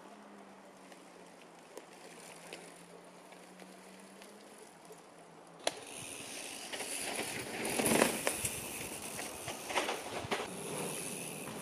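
Pivot Trail 429 mountain bike on a dirt trail: tyre noise and frame and chain rattle, starting suddenly with a click about halfway through and loudest a couple of seconds later. Before that there is only a faint low hum.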